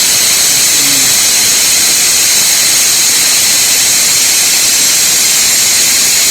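Loud, steady hiss of compressed air from a TV-panel hot-bar bonding machine during its bonding cycle, before the head lifts on its own.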